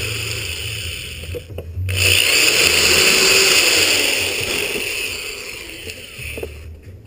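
Electric drill running while drilling holes. It stops briefly about a second and a half in, then runs again and winds down near the end.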